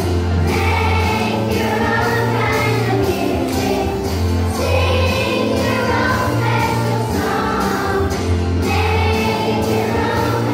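A children's choir singing a song with hand actions over a backing track, which carries a steady beat and a bass line.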